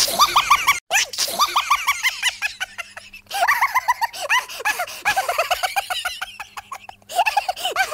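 High-pitched giggling laughter in rapid repeated bursts, with short breaks about a second in, at about three seconds and near the end.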